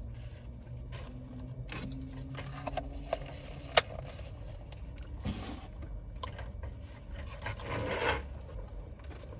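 A utensil scraping and rubbing in a takeout food container, in a few separate strokes, with one sharp click nearly four seconds in, over a low steady hum.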